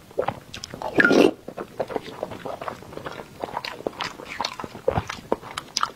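Close-miked eating: chewing and wet mouth clicks from a person eating whole boiled eggs in chilli sauce, with one louder, noisier mouth sound about a second in.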